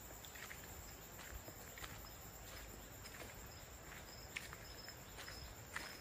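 Faint forest insects: a steady high buzz with a high chirp repeating about every half second. Scattered soft steps sound on a dirt trail.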